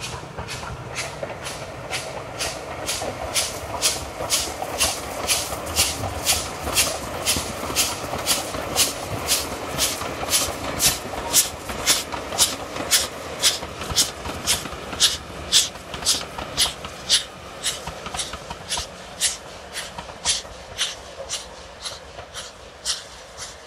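Steam locomotive hauling a passenger train, its exhaust beats chuffing in a steady rhythm of about two a second over the rumble of the train, fading a little near the end.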